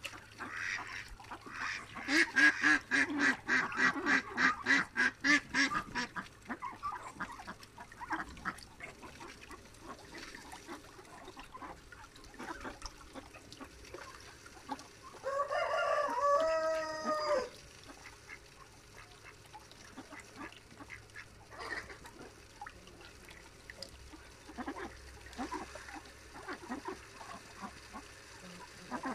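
Domestic ducks quacking in a fast, even run of about five quacks a second for four seconds. Around the middle comes a single long rooster crow of about two and a half seconds, with scattered softer calls afterwards.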